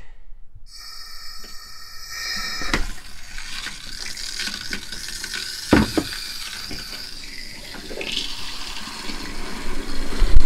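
RV antifreeze running from a bathroom sink faucet into the basin, fed by the trailer's 12-volt water pump, as the line is filled during winterizing. The flow starts about a second in; there are a couple of sharp knocks partway through and a loud thump at the very end.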